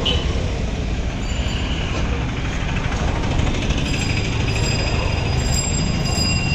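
Busy street ambience: a steady rumble of traffic with people talking in the background.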